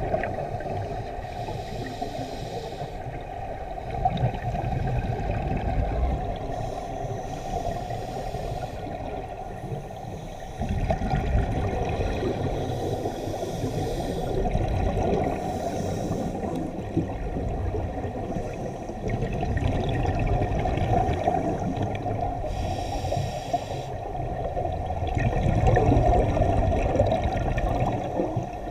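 Underwater sound of a scuba diver breathing through a regulator, with the gurgle and rumble of exhaled bubbles, muffled through a camera's underwater housing. The level swells every several seconds with the breaths.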